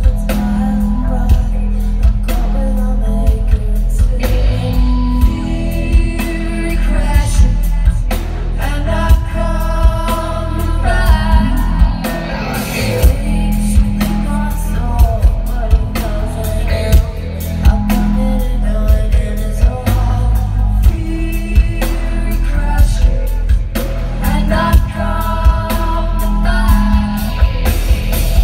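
Live rock band playing loud: a woman singing over distorted electric guitar, bass guitar and drums, with the vocal line coming and going in phrases.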